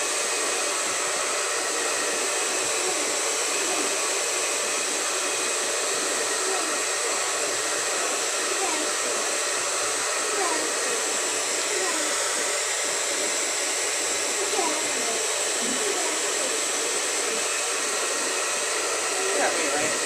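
Handheld hair dryer running, a steady rush of air with a faint whine, drying wet acrylic paint.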